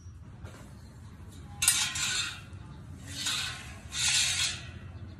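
Metal scraping on the rim of a spoked motorcycle wheel spinning in a truing stand, as a metal rod held against the rim rubs the spots where it runs out of true. There are three scrapes of about half a second each; the first and loudest starts with a sharp clink.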